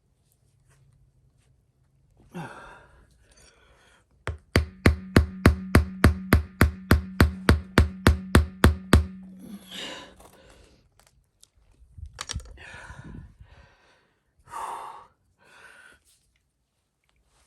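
Heavy breathing and sighs from someone straining to push a plug into a tire. In the middle comes a quick run of about seventeen even, sharp knocks, roughly four a second, lasting about five seconds.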